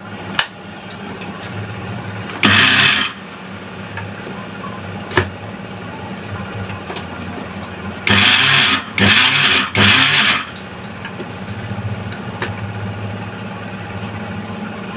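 Butterfly mixer grinder grinding sugar into powder: a steady motor hum with short, much louder bursts of whirring, one about two and a half seconds in and three in quick succession near the middle.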